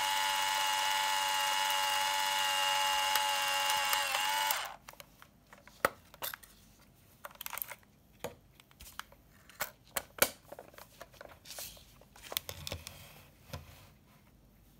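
The film-transport motor of a Premier Focus Free PC-640 35mm point-and-shoot camera whirring steadily as it rewinds, dipping slightly in pitch and cutting off about four and a half seconds in. After it, a run of sharp plastic clicks and handling noise as the camera's back is opened.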